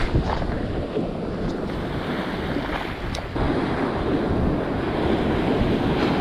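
Ocean surf breaking and washing up a sandy beach, with wind buffeting the microphone; the surf grows louder suddenly about three and a half seconds in.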